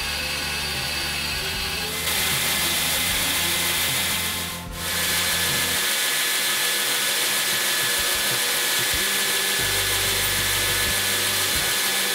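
Homemade belt grinder running: its three-phase electric motor hums and the abrasive belt hisses steadily as a workpiece is pressed against it, with a brief dip in the sound about four and a half seconds in.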